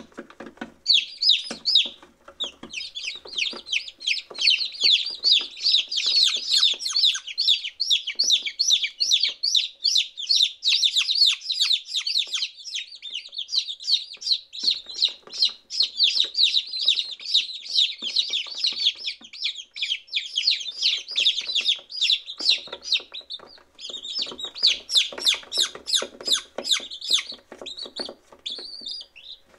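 A brood of day-old chicks peeping: many short, high peeps, each sliding downward in pitch, overlapping in a continuous chorus, with brief lulls about two seconds in and again around twenty-three seconds.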